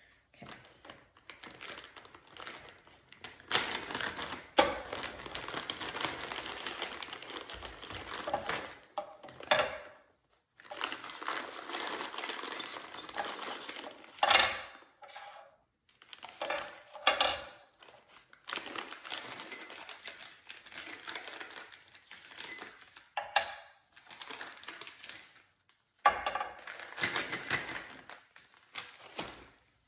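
Wet clay being worked on a running potter's wheel while a goblet foot is thrown: rough rubbing and scraping of hands and tools on the clay, in stretches of a few seconds broken by short pauses and a few sharper scrapes.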